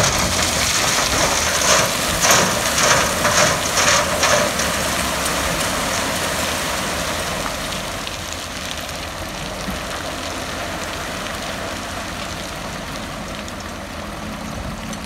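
A truck's engine runs while a load of gravel pours out onto the ground. The gravel gives a rushing, rattling noise, loudest in the first four seconds or so, that then eases into a steadier hiss under the engine.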